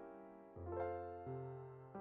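Background music: a slow piano melody on a keyboard, four notes struck in turn, each ringing out and fading.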